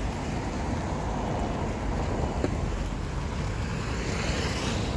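Wind rumbling on the microphone, with road traffic in the background.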